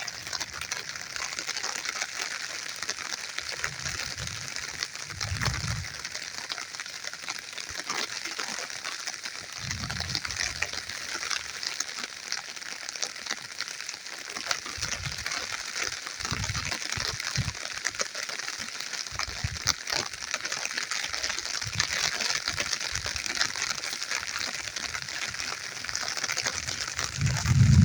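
Light rain falling steadily on the ground and plants: an even hiss full of fine pattering drops. A few brief low thumps come and go underneath.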